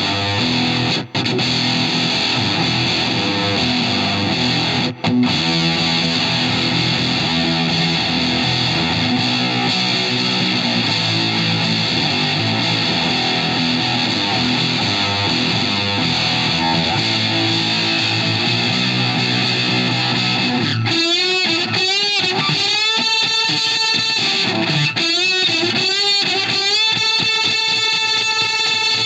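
Electric guitar played through a reproduction Fender Blender octave-fuzz pedal, with thick distorted sustained chords. About two-thirds of the way in it changes to single notes bent up and down in pitch, with two brief breaks near the start.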